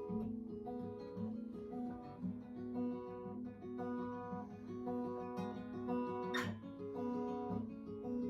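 Acoustic guitar playing a repeating pattern of notes with no singing, and a single sharp click about six seconds in.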